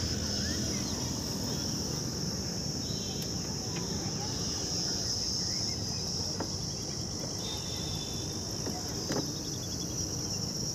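Steady high-pitched insect chirring over a low background rumble, with a couple of faint clicks in the second half.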